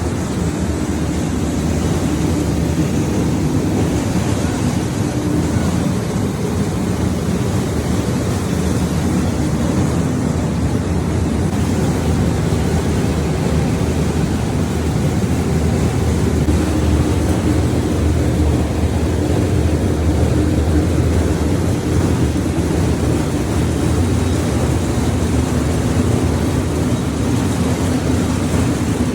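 Corn flakes production line machinery running: a loud, steady mechanical hum and whir with a constant low drone, unchanging throughout.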